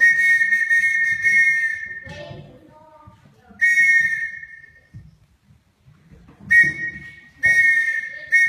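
A whistle sounding Morse code slowly in long and short blasts at one steady pitch: a long dash of about two seconds, a second dash of about a second, a short dot, then another long dash.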